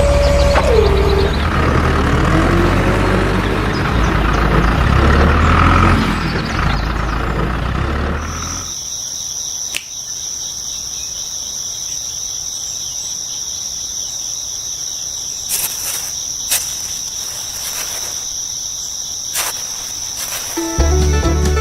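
A truck engine running for about eight seconds, followed by a steady, high-pitched insect-like chirring that lasts the rest of the time.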